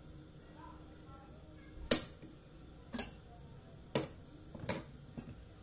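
Large kitchen knife chopping fried egg on a wooden cutting board: four sharp knocks roughly a second apart, then a fainter one near the end.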